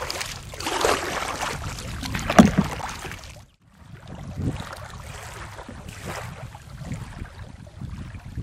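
Kayak paddle strokes: water swishing with each stroke, about every second and a half, with a thump a little over two seconds in. The sound drops to near silence for a moment partway through, then the strokes go on more quietly.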